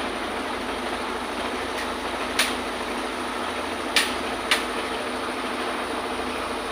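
Concrete pump running steadily as the pour begins, a constant engine drone. Three sharp knocks stand out, one about two and a half seconds in and two close together around four seconds in.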